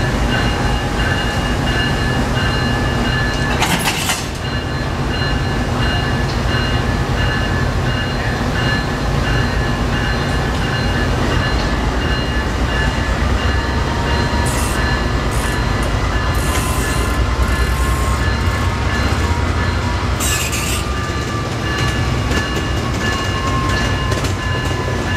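Amtrak P42DC diesel locomotive running at idle, a steady low rumble with a few steady high-pitched whines over it. Two short hissing bursts cut through, about four seconds in and again about twenty seconds in.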